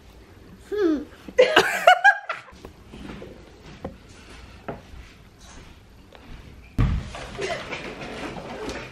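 Short laughter and voice sounds about a second in, then quiet room sounds with a few faint knocks. A sudden louder noisy background comes in near the end.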